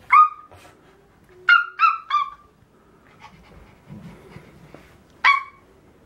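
A young child imitating a puppy with short, high yips. There is one at the start, three in quick succession about a second and a half in, and one more near the end.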